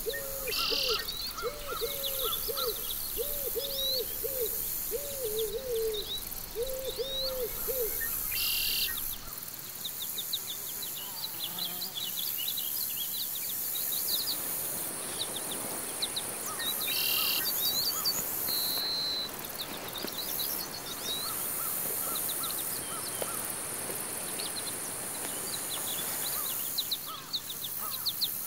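Forest bird and insect ambience. A low hooting bird call repeats about once a second for the first eight seconds or so. High, quick bird chirps run over a steady high insect buzz throughout.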